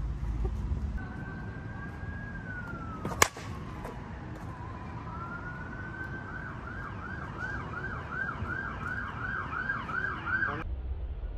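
An emergency vehicle siren: a slow wail that falls, then rises, then switches to a fast yelp of about three cycles a second, cutting off abruptly near the end. A single sharp crack about three seconds in is the loudest sound.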